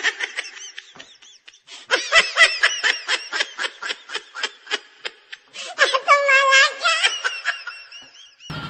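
Laughter in three bursts of rapid 'ha' pulses, the last ending in a held, wavering note.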